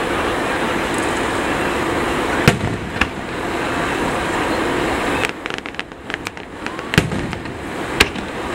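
Aerial fireworks shells bursting: two sharp booms about two and a half and three seconds in, a run of small crackles past the middle, then two more booms near the end, over a steady background noise.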